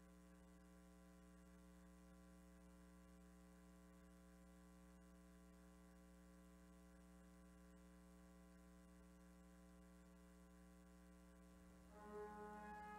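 Near silence with a faint, steady electrical hum. Music fades in about a second before the end.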